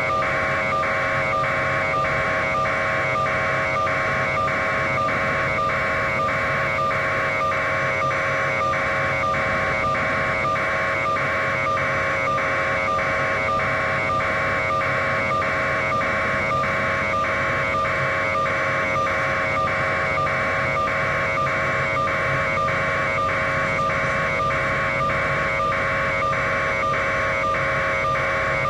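An electronic pulsing tone: a high buzzy beep repeating evenly about one and a half times a second over a constant lower hum, unchanging throughout.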